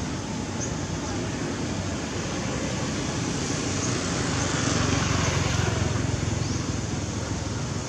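Steady road traffic noise, with one vehicle passing that swells and fades about halfway through.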